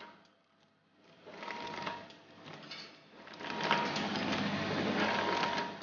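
Vertical form-fill-seal packing machine bagging roasted peanuts, running with a mechanical clatter and a thin steady whine. It grows loudest in the last two and a half seconds, mixed with the crackle of the printed plastic bag film.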